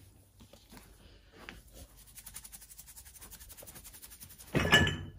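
Carpet-cleaning powder being shaken from a plastic shaker bottle onto carpet, a faint quick scratchy patter. About four and a half seconds in comes a short loud knock from bumping into something.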